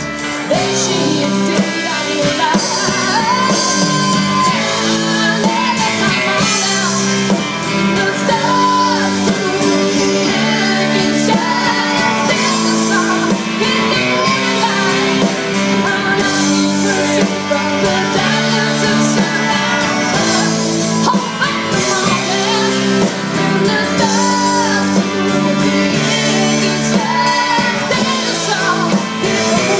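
Live rock band playing through a PA: electric guitars and drums, with a woman singing lead.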